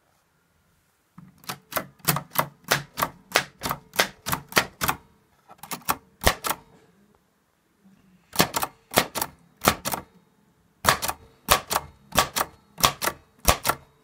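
Maritsa 11 typewriter being typed on: typebars strike the paper in quick runs of about four keystrokes a second, broken by short pauses.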